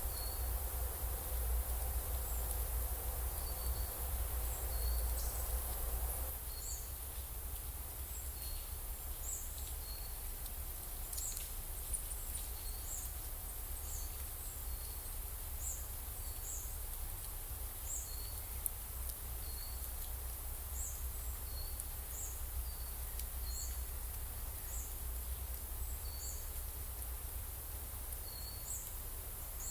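Forest ambience: a small high chirp repeated about once a second, alternating between two pitches, over a low rumble of wind.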